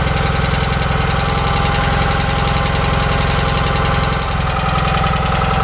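Onan CCKA air-cooled opposed-twin engine running steadily on a test stand, with an even pulse from its exhaust, dipping briefly about four seconds in. It runs pretty smooth apart from a slight valve tick.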